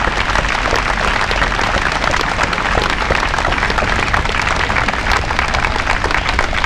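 A crowd clapping steadily, a dense patter of many hands.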